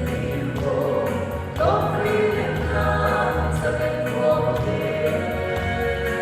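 A group of singers singing a song together in held notes over a band accompaniment with a steady bass line.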